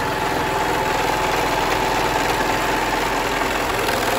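Elmas 328 overlock machine (serger) running steadily at speed, stitching and trimming the edge of the fabric with a fast, even mechanical rhythm.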